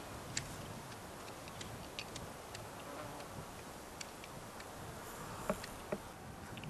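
Summer meadow ambience: insects buzzing in the grass, with scattered faint ticks and clicks, two slightly louder clicks near the end.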